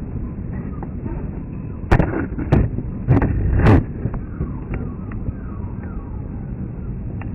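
Steady low rumble of a jet aircraft, broken by four loud, sharp bangs close together about two to four seconds in.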